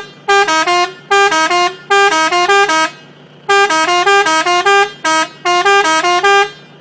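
Multi-tone melody car horn (a so-called Arabic horn) sounded by its electronic horn controller, playing a quick tune of short, stepping notes. The notes come in loud phrases separated by brief pauses, with the longest pause about three seconds in.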